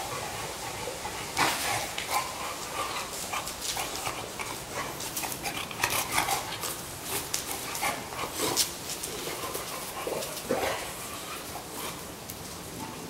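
Two dogs play-fighting: short grunts, whimpers and huffs, with scuffling and many quick clicks as they tussle.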